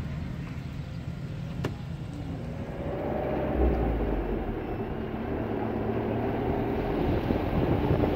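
A motor engine running, with a steady low rumble; its pitch rises about three seconds in, and it grows slowly louder.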